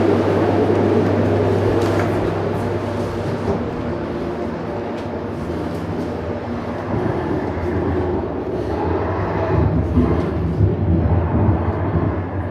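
A steady low mechanical hum with a few faint clicks and rustles over it, growing louder and busier about halfway through.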